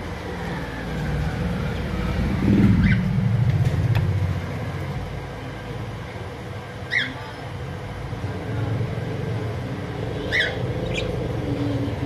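A few short, sharp budgerigar chirps, about four, over a steady low rumble that swells and is loudest around two to four seconds in.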